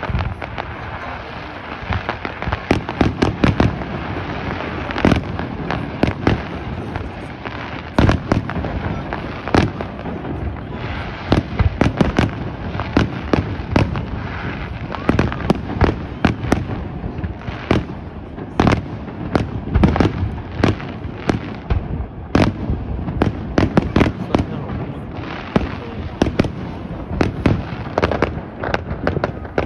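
Fireworks display: aerial shells bursting and crackling in rapid, irregular bangs, several a second, over a steady background noise.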